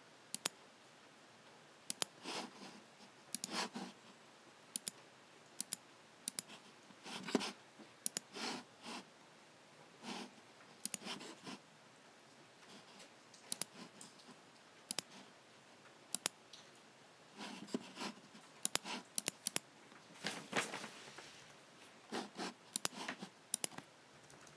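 Logicool (Logitech) G7 computer mouse buttons clicking at an irregular pace, often two clicks in quick succession, with softer, longer handling sounds between the clicks.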